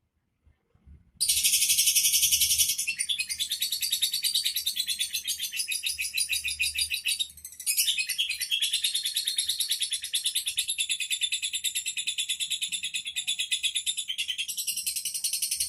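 Lovebird singing a long, fast chattering trill of rapid high chirps that starts about a second in, breaks off briefly about halfway, and then carries on.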